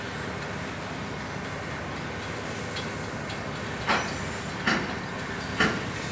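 Steady background noise with three sharp knocks a little under a second apart, starting about four seconds in.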